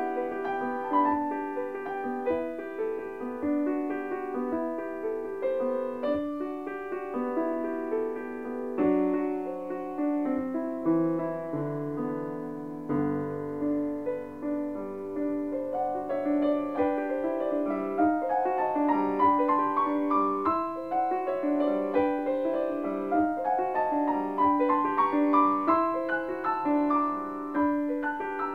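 Piano music, a continuous flow of notes.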